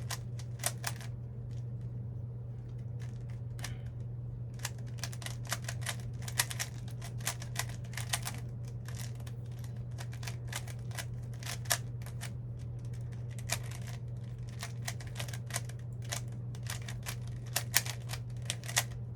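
Plastic Rubik's cube layers being turned rapidly while solving: quick, irregular runs of clicks and clacks, with a lull of a few seconds near the start. A steady low hum runs underneath.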